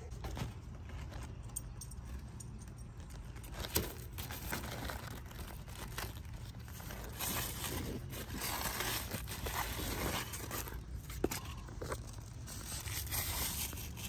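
Large cucumber leaves and vines rustling and crinkling as hands push through them, with a couple of sharp clicks from pruning shears.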